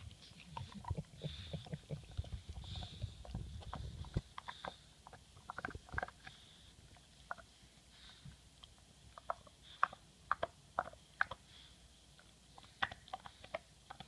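English Bulldog gnawing a hard chew bone: irregular clicks and cracks of teeth on bone, sharper and more spaced out after about five seconds. A low rumble runs under the first four seconds.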